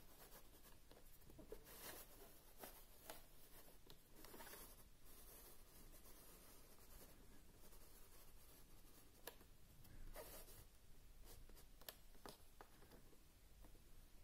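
Faint scraping and a few light clicks of a figure's plastic base being turned by hand and sliding over a shelf.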